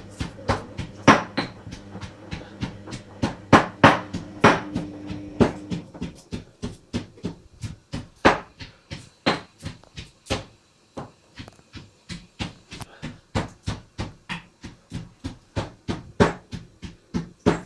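Hoover Dynamic washing machine on the main wash with fast tumble, laundry and its fastenings knocking and clicking against the drum about two or three times a second over a low motor hum. There is a short lull a little past halfway, then the tumbling resumes.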